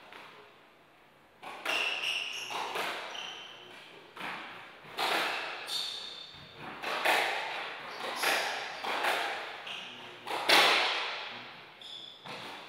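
Squash rally: the ball cracks off the racquets and the walls about once a second, each hit echoing around the court, with short squeaks from shoes on the wooden floor between the hits.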